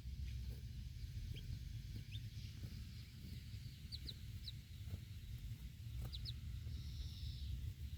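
Baby chicks peeping: short, high cheeps that fall in pitch, several coming in quick pairs, over a steady low rumble.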